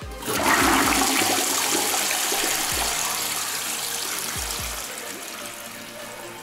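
Toilet flushing into a bowl packed with sweet straws: water rushes in suddenly about half a second in, then slowly eases off. A low electronic music beat thumps underneath.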